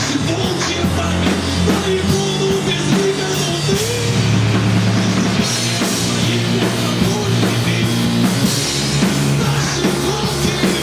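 Rock band playing live: steady low bass notes under a pitched melody line, with regular drum hits.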